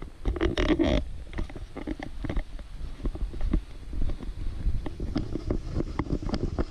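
A hiker walking a dirt forest trail: irregular footfalls and knocks of gear, over a steady low rumble of wind and movement on the microphone, with a louder rustle near the start.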